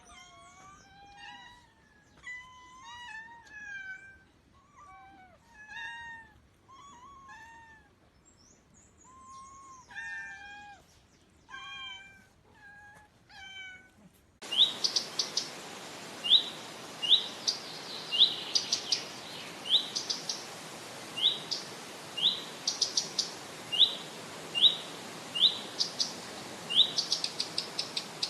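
A cat meowing in a series of short calls that bend up and down. About halfway through it cuts to a small bird giving short, sharp rising chirps, roughly one a second and sometimes in quick clusters, over a steady hiss.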